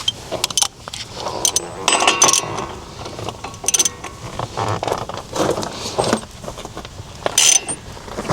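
Metal hand tools, a socket and wrench or breaker bar, clinking and rattling on a wheel hub's bolt in several short, separate bursts.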